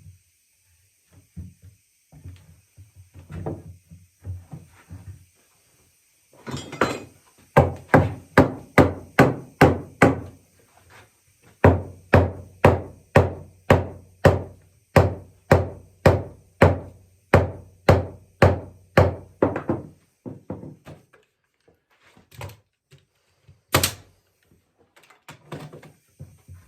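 Rungs of a rustic sourwood rocking chair being hammered into the posts: a few light knocks, then two long runs of steady blows, about two and a half a second, with a short pause between them. A single sharp click near the end.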